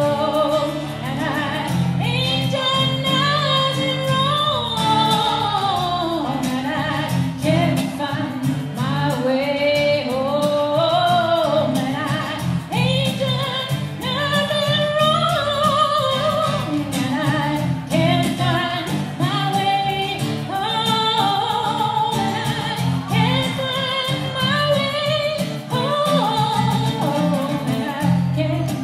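A woman singing a slow song live, in long sung phrases, over acoustic guitar accompaniment.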